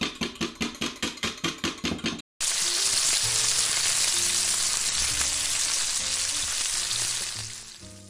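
A fork beating eggs in a glass Pyrex measuring cup gives quick, even strokes, about six or seven a second. After a brief cut, bacon sizzles loudly in a frying pan, then fades out near the end.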